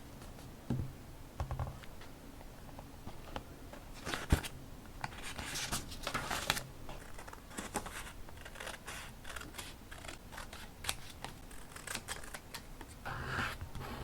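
Scissors snipping through paper in a run of short cuts, with paper rustling and a single sharp knock about four seconds in.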